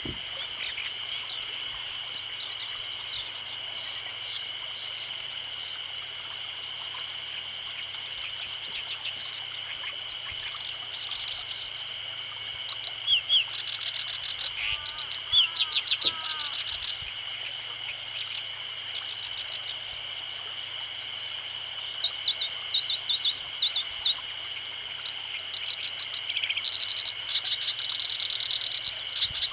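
Black-browed reed warbler singing: quiet chattering at first, then two loud bouts of fast, varied song with rapid buzzy trills, starting about ten seconds in and again about 22 seconds in. Under it runs a steady, high-pitched background drone.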